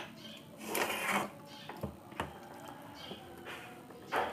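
Handling clatter of a CRT television's circuit board and plastic chassis being worked loose: scattered clicks and knocks, a short scraping rustle about a second in, and a louder knock near the end.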